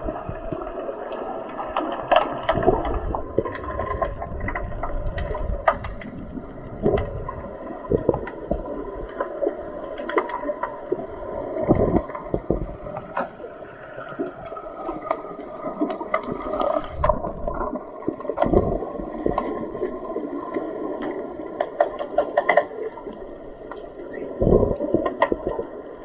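Underwater hockey play heard through a submerged camera: a muffled rush of water and bubbles, with many short, sharp clicks and knocks and a few dull thumps.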